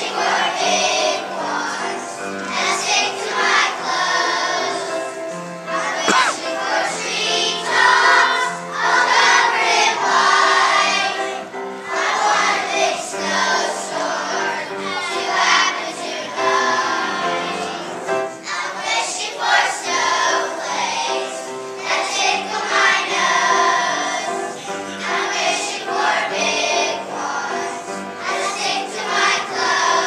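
A large choir of young children singing a song together.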